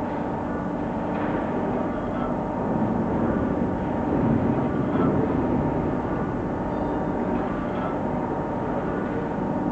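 Okamoto PSG63DXNC CNC surface grinder running: a steady machine hum with several held tones, swelling slightly in the middle.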